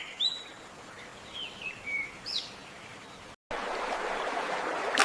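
Several short, gliding wild bird chirps over a soft background hiss. After a brief break about three and a half seconds in, a steadier, louder rush of stream water takes over.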